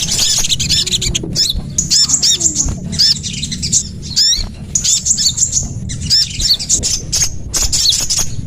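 Small songbirds calling in repeated bursts of quick, high, arching chirps, each burst about a second long with short pauses between, over a steady low hum: a bird-trapping lure call.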